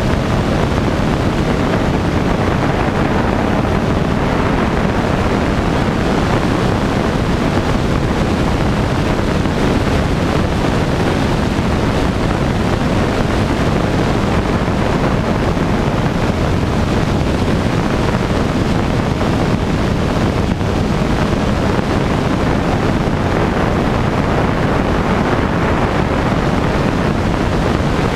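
Rainbow Aircraft Cheetah light aircraft in level flight: steady engine and propeller noise mixed with heavy wind rush on the microphone.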